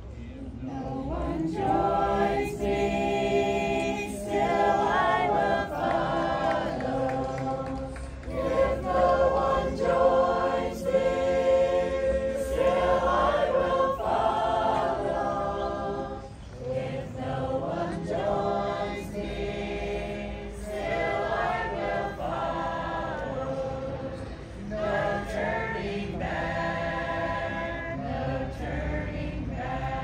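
A choir singing, holding long notes.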